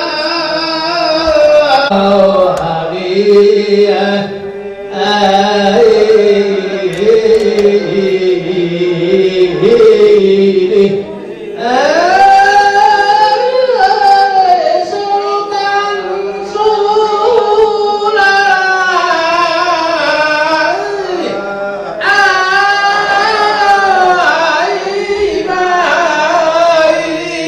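A man chanting into a microphone in long, drawn-out melodic phrases, the pitch wavering and gliding on held notes, with short pauses for breath between phrases.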